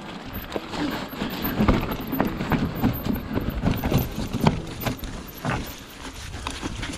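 Haibike full-suspension e-mountain bike descending a rough trail: a rush of tyre noise with irregular knocks and rattles from the bike as it runs over the bumps.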